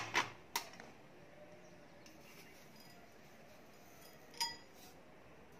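A steel spoon and small bowls clinking as they are handled: a few light knocks as a bowl is set down on a tray, then a single short ringing clink about four seconds in.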